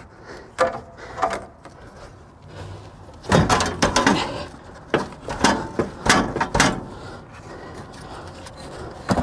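Air filter canister being pushed and worked by hand onto the turbo intake pipe, giving irregular knocks and scrapes of the housing against the rubber pipe and nearby parts. Most of the handling noise comes in a cluster about three to seven seconds in.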